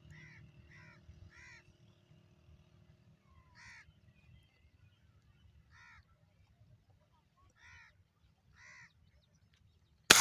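A bird gives short repeated calls, three in quick succession, then single calls every second or two. Near the end comes one sharp, loud shot from a Gamo Whisper X air rifle.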